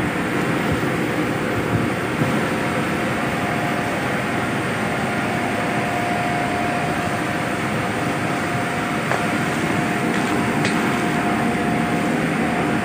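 Steady drone of shipboard machinery, an even roar with a constant hum tone running through it, and a couple of faint clicks late on.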